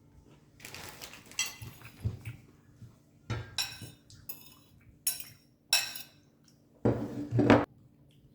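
Dishes and cutlery clattering: a string of separate clinks and knocks, with a longer, heavier clatter near the end that is the loudest.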